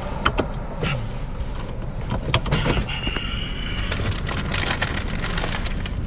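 Cabin sound of a running Hyundai Accent: steady low engine and road rumble, with many sharp clicks and rustles from a phone being handled close to the microphone, and a brief thin whine about three seconds in.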